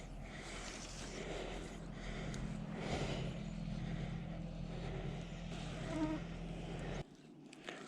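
A steady low buzz over a faint background hiss, cutting off abruptly about seven seconds in.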